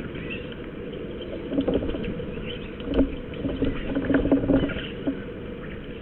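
Iberian (azure-winged) magpies pecking and scrabbling at a chicken carcass close to the microphone: irregular taps and scrapes, bunched together in the middle.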